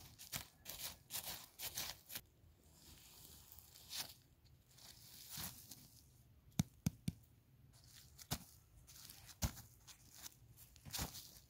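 Wooden stick scraping and raking dry dirt and charcoal off a foil-wrapped package buried in the ground, with loose earth crumbling and a few sharp knocks about two-thirds of the way through.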